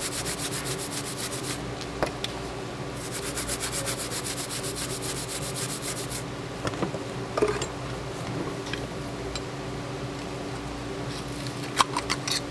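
Stiff brush scrubbing live abalone shells clean, in quick, even back-and-forth strokes, in two spells of about three seconds each with a short pause between. A few sharp clicks come near the end.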